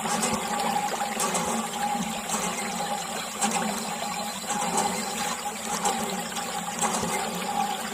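Water pouring steadily from a thin plastic tube and splashing onto wet soil, with a steady hum beneath it.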